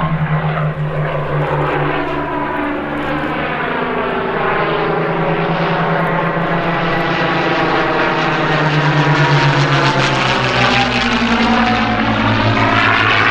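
Hispano HA-1112 Buchon fighter's Rolls-Royce Merlin V12 engine and propeller making a steady drone on a low display pass. It grows louder toward the middle, then its pitch drops as the aircraft goes past, about three-quarters of the way in.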